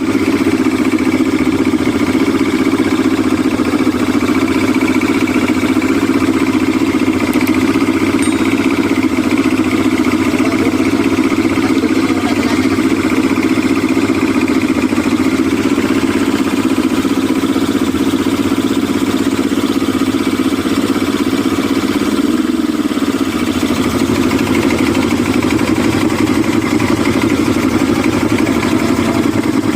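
Yamaha 200 hp outboard motor running steadily on a test run after repair, its note shifting briefly about three-quarters of the way through.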